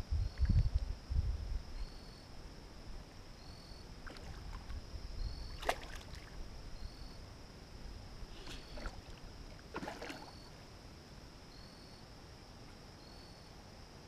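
Steady high insect drone with a short chirp about once a second. Low rumbling bumps on the microphone come in the first two seconds, and a few sharp clicks follow around the middle.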